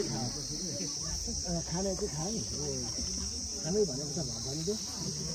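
Insects chirring in a steady, unbroken high-pitched drone, with people's voices talking underneath.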